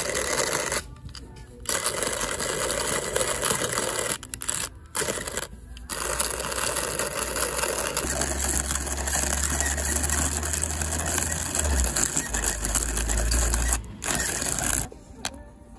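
Hand-cranked coffee grinder grinding whole roasted coffee beans: a steady crunching grind as the crank turns, broken by a few brief pauses.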